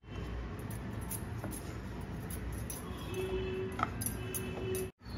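Rolling pin rolling stuffed dough flat on a floured metal board: a quiet, steady low rumble with a couple of light clicks. Faint brief tones sound near the end.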